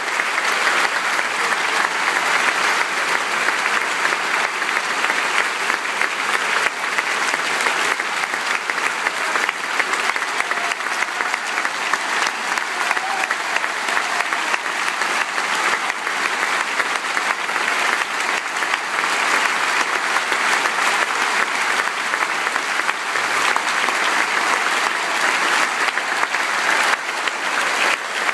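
Large concert-hall audience applauding, a dense, steady wash of clapping.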